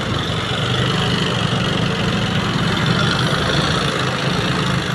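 Motorcycle engine and exhaust running steadily while riding, a constant low drone with no change in pitch.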